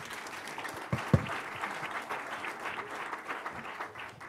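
Audience applauding, many hands clapping at once, dying down near the end. A couple of low thumps about a second in.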